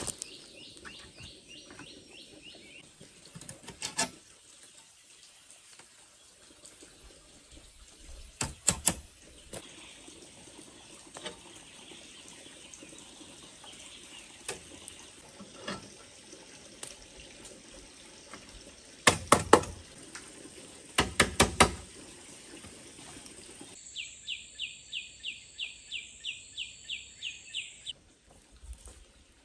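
Sharp knocks on a bamboo roof frame as slats are fixed across the rafters: a few scattered single knocks and short groups, including two quick runs of four about two-thirds of the way through, over a steady outdoor hiss.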